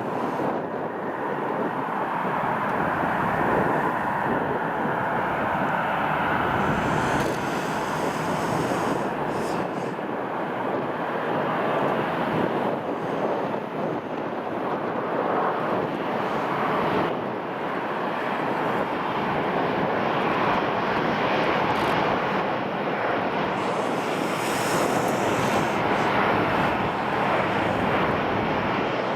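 Jet engine noise of an Airbus A350, its Rolls-Royce Trent XWB engines running steadily as one even rushing sound without a change in pitch.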